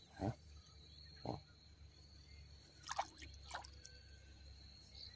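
Four small plops at the water's surface, spread over a few seconds, from chum pellets or feeding fish in a pond.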